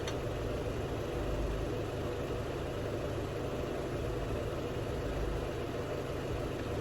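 A vehicle engine idling steadily, a low even rumble with no clicks or changes.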